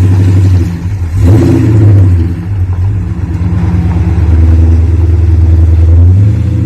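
Chevrolet 454 big-block V8 running loud, revved up briefly about a second in, then easing off and building again.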